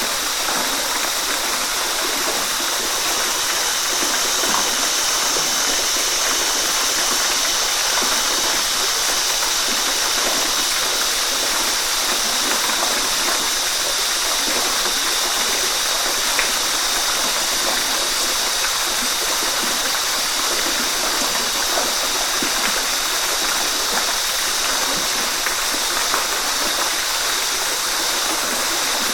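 Steady rain falling in a forest, an even hiss with occasional faint drips.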